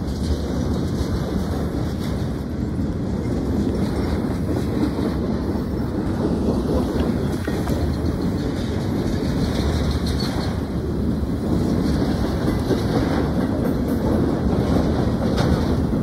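Freight train of flatcars and boxcars rolling past at a grade crossing: a steady rumble of steel wheels on the rails, growing slightly louder near the end.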